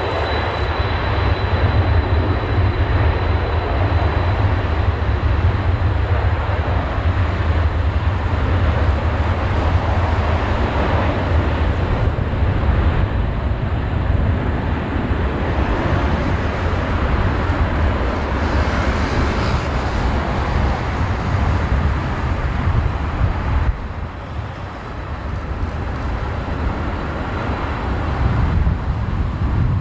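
Emirates Airbus A380 jet engines at take-off power: a loud, continuous rumble with a deep low drone. It eases off a little about three-quarters of the way through, then builds again.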